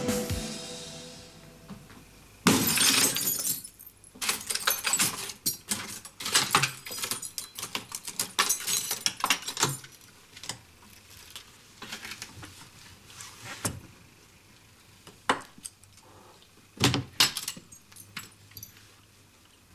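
A glass pane in a door is smashed with a loud crash about two and a half seconds in, followed by a run of sharp clinks and knocks of glass over the next several seconds and a few separate knocks later.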